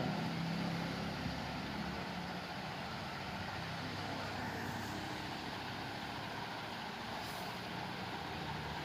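Steady background vehicle noise: a low, even hum that runs without any sudden sounds.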